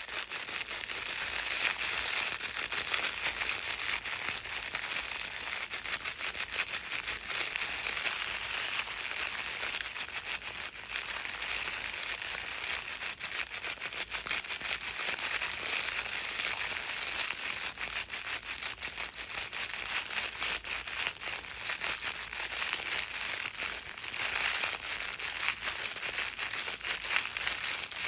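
A baby's crinkle book being scrunched continuously, a steady dense crackling rustle used as white noise to calm a crying baby.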